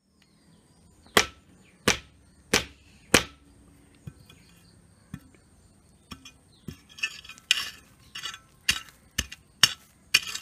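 Sharp chopping strikes on cassava stems, four evenly spaced blows about two-thirds of a second apart, then crackling and rustling of stems and leaves with a few more scattered strikes near the end.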